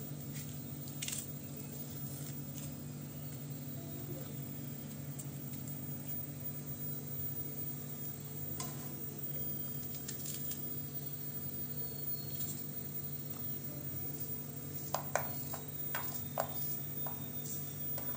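Small knife scraping and clicking as potatoes are peeled by hand, with light knocks of knife and potato against a metal pan of water, a cluster of sharper clicks near the end. A steady low hum sits underneath.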